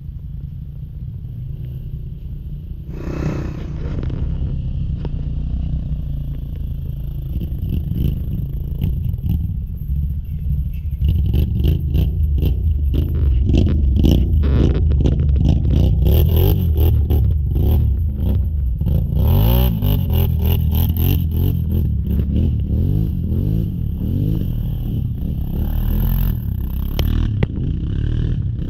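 Off-road vehicle engine running and revving while driving over rough trail, with much rattling and knocking from the bumpy ground. It gets louder and busier from about ten seconds in.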